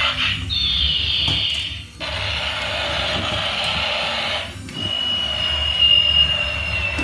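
Electronic sound effects from a battery-powered toy vehicle: a high tone sliding down in pitch, then a stretch of hissy noise, then a long, steady high tone that sags slightly, over a low rumble.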